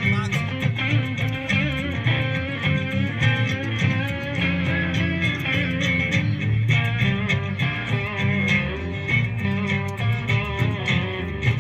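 Live band playing a bluesy rock tune, led by guitar with electric guitar and bass guitar, amplified through PA speakers.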